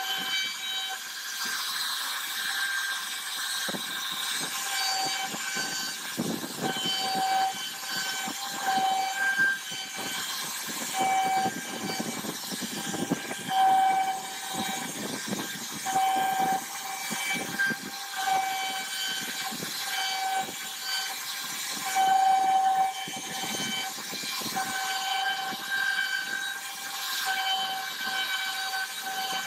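CNC router spindle whining at a steady high pitch as its bit carves a relief pattern into a wooden door panel. The cutting noise rises and falls as the bit moves through the wood.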